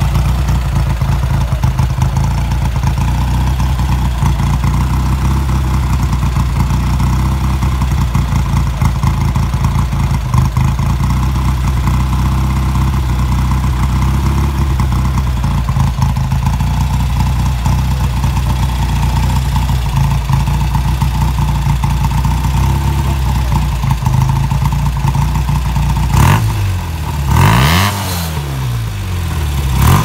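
BSA Gold Star's single-cylinder engine and exhaust idling steadily, then revved twice near the end, the pitch rising sharply and falling back to idle.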